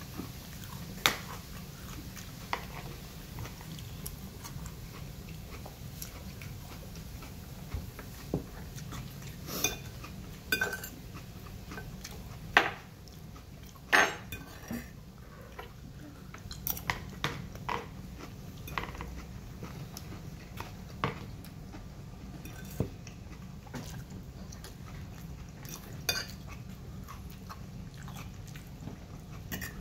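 Metal fork clinking and scraping against a plate at irregular moments, with chewing between, over a steady low hum.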